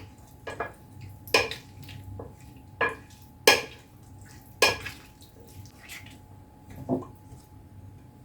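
Green olives being stirred with oil and spices in a bowl, with about six sharp clinks against the bowl at irregular intervals.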